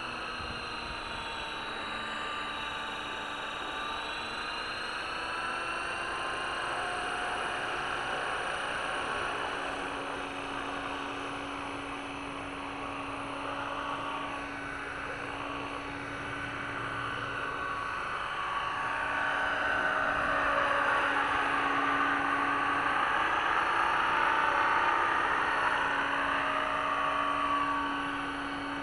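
500-size radio-controlled helicopter, a T-Rex 500 clone, under power: a steady whine from the electric motor and gears with the whir of the spinning rotor blades, its pitch wandering as it lifts off and flies low. It grows louder over the second half and eases off near the end.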